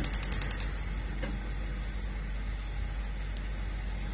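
Induction cooktop running under a pot of water: a steady hum of its fan and coil, with a rapid high-pitched ticking buzz that cuts off under a second in.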